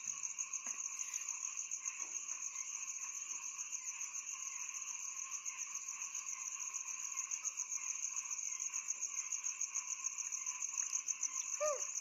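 Steady night chorus of crickets: a high, fast-pulsing trill that goes on without a break, with lower steady insect or frog calls beneath it and a short chirp near the end.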